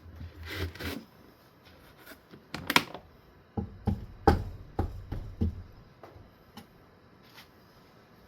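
Handling noises of a wooden ceiling fan blade and cleaning things being picked up and set down on a cardboard mat: a short scrape, a sharp clack, then a run of about six knocks and thuds over two seconds.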